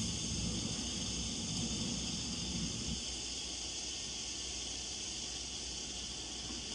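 Steady hiss from a stainless steel stovetop kettle heating on the stove, not yet whistling; a low rumble underneath drops away about three seconds in.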